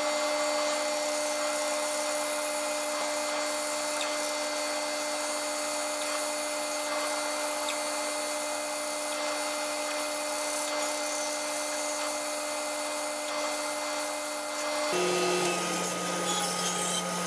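Bandsaw running and cutting a wooden block round, a steady motor hum with the rasp of the blade in the wood. The hum shifts in pitch near the end.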